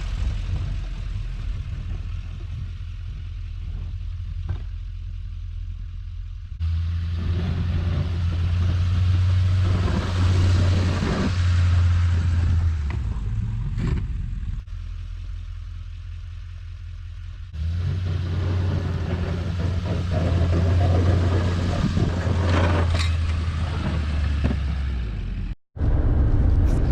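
Truck engine running steadily with some clatter, louder and busier in two long stretches as it works harder, and cut off for a moment near the end.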